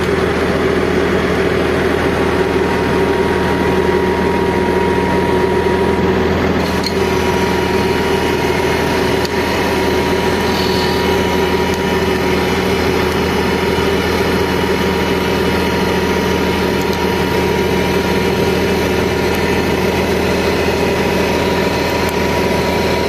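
Komatsu GD535-5 motor grader's diesel engine running steadily, with a faint steady high whine alongside.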